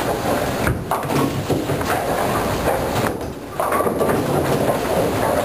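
Bowling alley din: a bowling ball rolling down the wooden lane and pins clattering, over the steady rumble of balls and pin machinery on the other lanes. The noise briefly drops, then picks up again suddenly a little past halfway.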